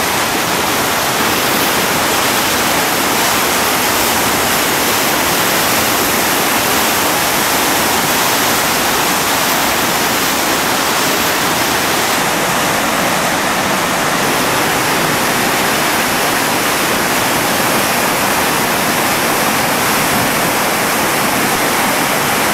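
Steady rush of a whitewater river rapid: water pouring over and around boulders in a continuous loud wash of noise.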